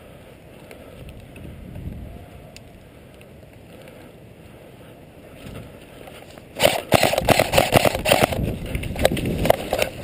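Low rustling of dry brush and grass close by. About two-thirds of the way in, an airsoft rifle fires several rapid bursts of sharp cracks for about three seconds.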